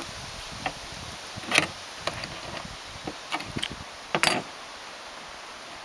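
Spanner working a rusty wing bolt loose on a car body: irregular metallic clicks and taps, with louder knocks about one and a half and four seconds in.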